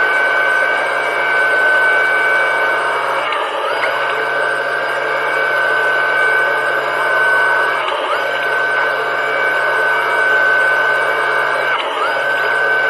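Small electric underwater thruster running with a steady high whine and a low hum, heard underwater. Its pitch dips briefly and recovers three times, roughly every four seconds.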